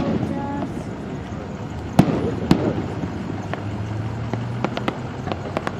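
Fireworks going off: a sharp bang at the start, a louder bang about two seconds in, then a run of smaller crackling pops toward the end.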